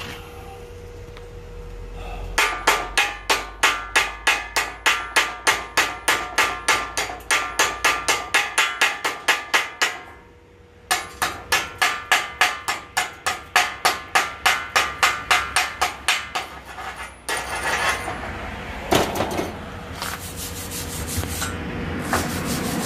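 Chipping hammer knocking slag off a fresh stick-weld bead, in two long runs of rapid blows at about four a second with a short pause between. Near the end comes the scratchy scrubbing of a wire brush cleaning the weld.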